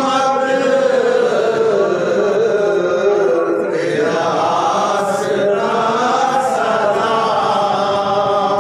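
Men chanting a Sufi manqabat, a devotional song in praise of a saint, in long drawn-out phrases that rise and fall without pause.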